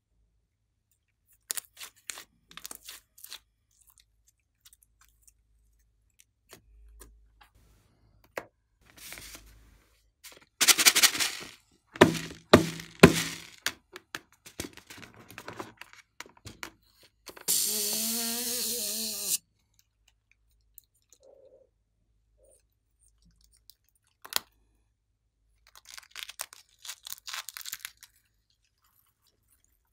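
Close-up handling of slime and a rubber long balloon: scattered crackles and squishes, a run of sharp clicks in the middle, then about two seconds of hissing with a wavering squeal as the balloon lets out air. Near the end, scissors snip crackling through the balloon.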